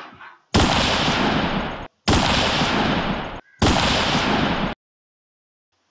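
Three loud bursts of a noisy sound effect, each about a second and a quarter long, starting sharply and cutting off abruptly.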